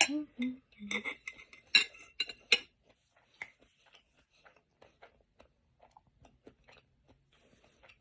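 Eating utensils clinking and scraping against a bowl, several sharp strikes with a short ring in the first few seconds, then fainter scattered clicks and small mouth sounds.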